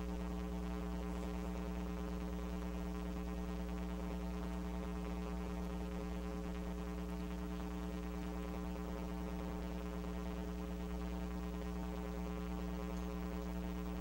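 Steady electrical mains hum in the sound system, a low buzz with a ladder of overtones that holds unchanged.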